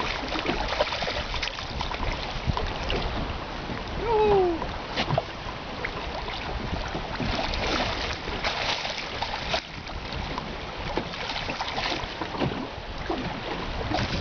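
Wind buffeting the microphone over splashing water as a hooked dorado thrashes at the surface. About four seconds in, a short falling voice-like call stands out as the loudest moment.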